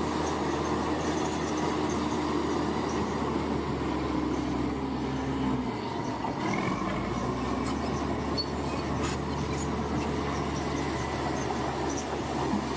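Bulldozer's diesel engine running steadily, its low note dropping and shifting briefly about halfway through before settling again.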